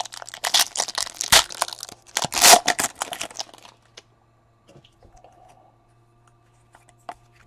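Foil wrapper of a trading-card pack being torn open and crinkled, a dense run of tearing and crackling for the first three and a half seconds. After that come only a few faint taps and rustles as the cards are handled.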